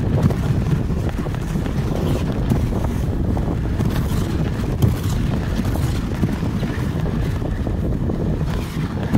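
Wind buffeting the microphone in a steady low rumble, mixed with the wooden dog sled's runners sliding and scraping over snow and ice while the dog team pulls it.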